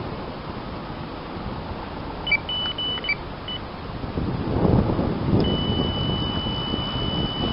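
Electronic carp bite alarm sounding a run: a few short high beeps about two seconds in, then one continuous high tone from about five and a half seconds as a fish takes line. Wind rumbles on the microphone throughout, loudest just before the steady tone.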